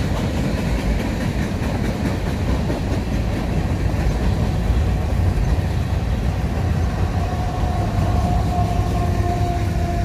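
Freight train cars rolling past with a steady rumble and wheel clickety-clack, the last of them followed by a trailing BNSF diesel locomotive at the rear of the train. A steady whine comes in about seven seconds in.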